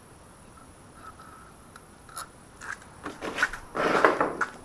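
Metal tools and engine parts being handled: a few scattered clicks and taps from about two seconds in, then a denser clatter with a short scraping rush near the end.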